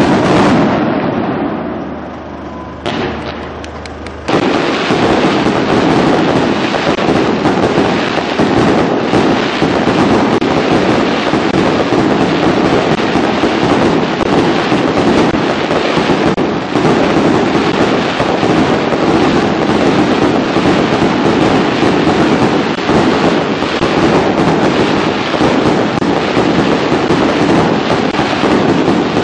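Fireworks display: a loud bang at the start that dies away, another bang about three seconds in, then from about four seconds a continuous barrage of rapid bangs and crackles.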